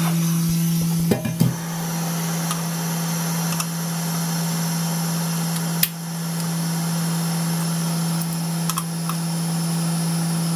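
Hot air rework station blowing steadily with a constant hum, heating the old solder on a chip's pins so the chip can be lifted. A few light clicks of a metal pick against the chip and circuit board.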